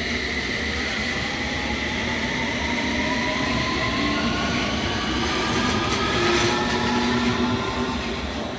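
London Underground S Stock train pulling away from the platform as it accelerates. Its traction motors give a whine of several tones that climbs steadily in pitch, over wheel and rail noise. It gets quieter near the end as the last car passes.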